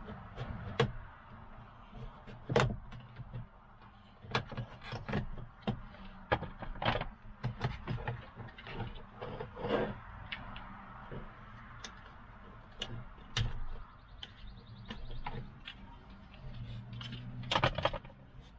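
Scattered clicks, taps and knocks of hands and tools working on a pickup truck's door and its plastic interior trim panel. A brief low hum sounds for about a second near the end.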